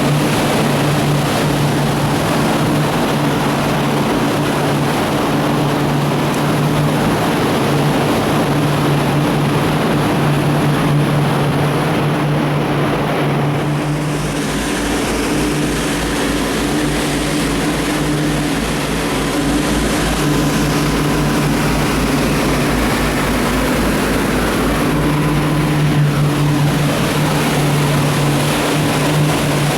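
Motorboat engine running steadily under a loud rush of wind and water noise, with a low throb joining in for about ten seconds in the middle.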